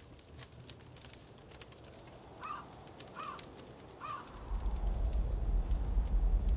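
Log campfire crackling, with a crow cawing three times near the middle. Later a low rumble swells and grows steadily louder.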